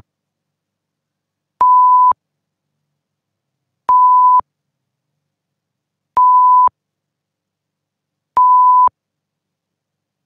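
Electronic beeps: a single steady pure tone about half a second long, repeated four times at an even pace of roughly one every two seconds, with silence between.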